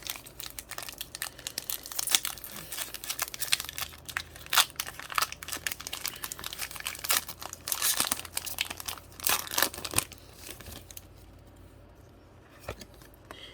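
Foil Pokémon booster pack wrapper being torn open and crinkled in the hands: dense, sharp crackles for about ten seconds, then only faint handling near the end.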